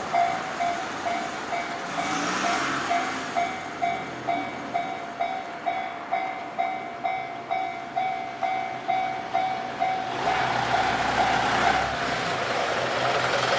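Japanese railway level-crossing warning bell ringing in steady pulses, a little over two a second. About ten seconds in, the rumble of an electric train passing rises and swamps the bell.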